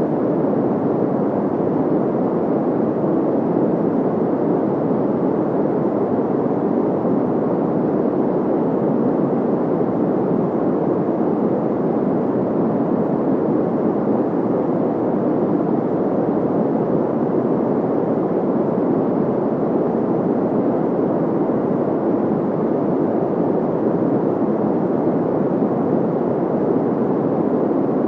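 Steady, unchanging white noise sound effect, its energy mostly in the low and middle range, so it sounds like a dull rush rather than a bright hiss.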